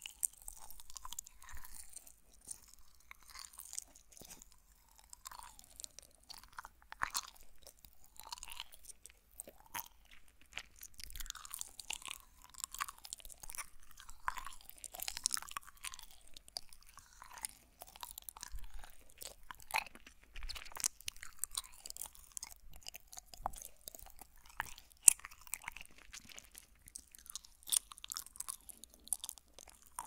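Gummy jelly candy being chewed right at the microphone: irregular, close mouth sounds of chewing and biting, with many small clicks and crunchy bites.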